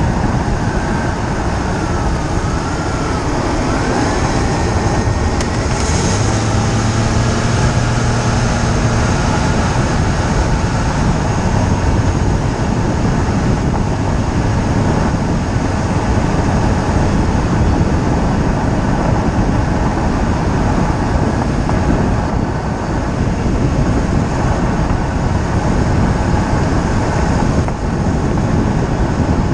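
Loud, steady tire and wind noise from a camera mounted behind a wheel of a moving BMW E46 325xi, with one sharp knock about six seconds in.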